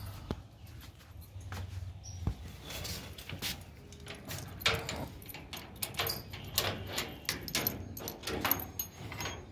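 A metal grille gate rattling and clanking as it is handled and opened, in a run of irregular clicks and knocks with a brief squeak or two.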